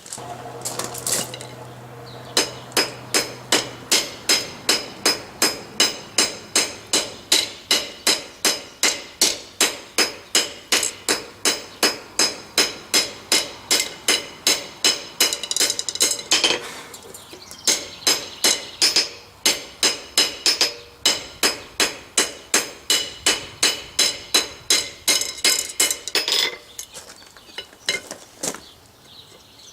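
Hand hammer striking hot steel on an anvil at a steady pace of about two blows a second, each blow ringing, while drawing down a tenon. There is a short break about halfway through, and the run ends with a few scattered blows.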